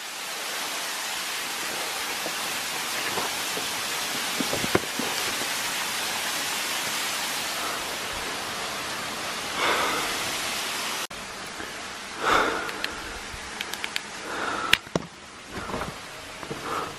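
Water trickling and splashing down a rock face into a crevice, a steady hiss of falling water. About eleven seconds in it cuts off abruptly to a quieter hiss with scattered clicks and knocks.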